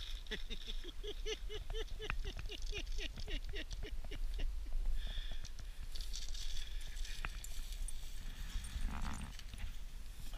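A rapid series of short pitched animal calls, about three a second, fading out after some four seconds, followed by quieter, less distinct noises.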